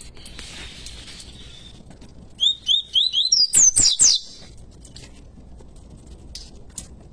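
Double-collared seedeater (coleiro pardo) singing one short phrase about two and a half seconds in: five quick rising notes, then a fast, higher flourish, all over in under two seconds.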